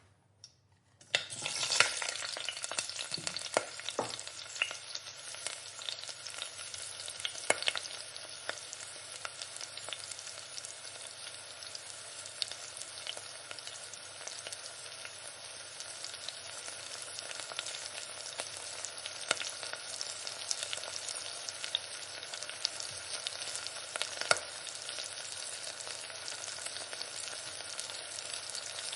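Hot oil frying in a pan: a dense crackling sizzle that starts suddenly about a second in. It is loudest at first, then settles into a steady sizzle with scattered sharp pops.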